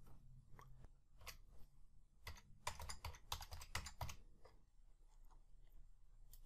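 Faint typing on a computer keyboard: a quick run of keystrokes lasting about two seconds in the middle, with a few single clicks before and after it.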